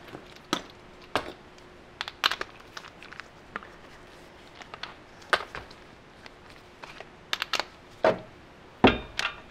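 Scattered light clicks and metal knocks, loudest near the end: an impact wrench and socket being handled and fitted onto the brake caliper mounting bracket bolts, without the wrench running.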